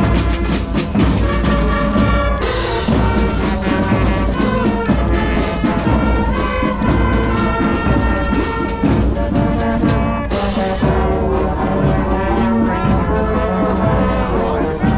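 Brass band music, horns playing a melody with sharp percussive strokes throughout.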